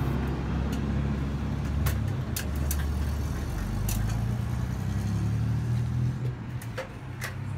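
Low, steady rumble of a motor vehicle running close by, with a handful of sharp clicks scattered through it.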